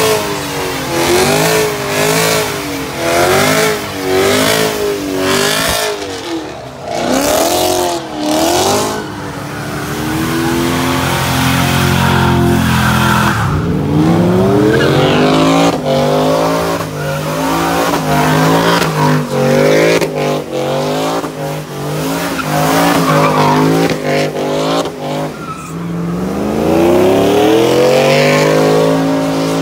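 A car engine revving up and down again and again, held at high revs for a few seconds near the middle before climbing once more, with tires squealing as the car does burnouts or donuts.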